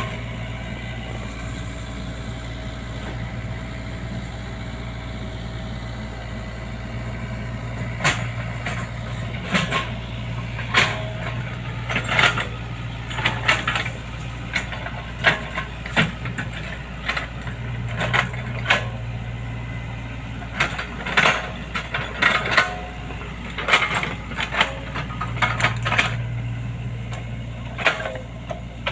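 Hydraulic excavator's diesel engine running steadily, its drone swelling and easing a few times. From about eight seconds in, frequent sharp knocks and clanks sound over it.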